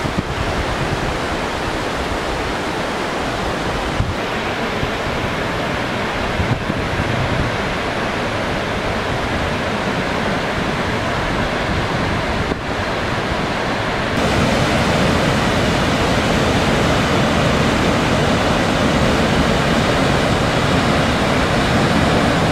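White-water river rapids rushing in a steady roar of water. About fourteen seconds in, the sound steps up louder and fuller, with more hiss.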